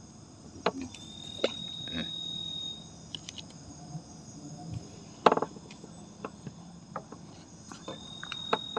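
Night insects, crickets, chirring steadily in several high tones, with a higher single-pitched trill twice. Scattered clicks and knocks break in, the loudest about five seconds in.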